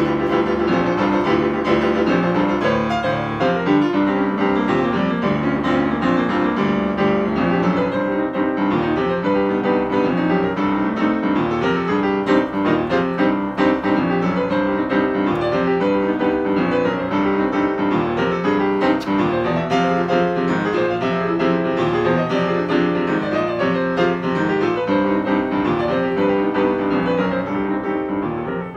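Steinway grand piano played solo in a busy, continuous passage of many quickly changing notes, dipping in loudness near the end.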